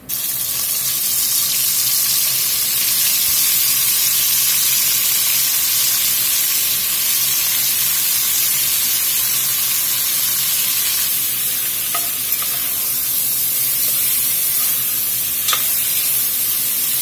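Chopped cube steak sizzling hard in hot oil in an enameled cast-iron Dutch oven: a loud, steady frying hiss that starts suddenly as the raw beef goes in and releases its water into the hot fat. A few light clicks of a metal spoon stirring and scraping the pot come near the end.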